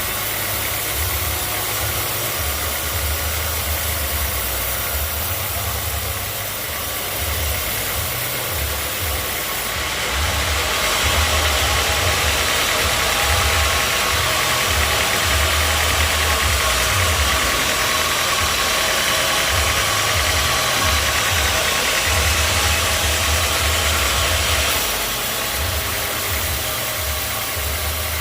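A sawmill's engine runs steadily. For about fifteen seconds in the middle the sound grows louder and brighter as the saw cuts through a log.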